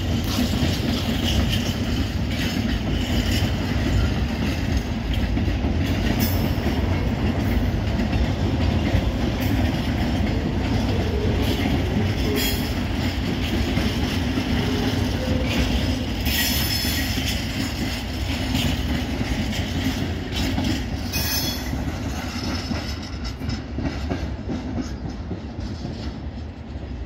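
Freight train of empty container flat wagons rolling past: a steady rumble of steel wheels on rail with the clickety-clack of wheels over rail joints and a few brief sharper sounds, dying away near the end as the train clears.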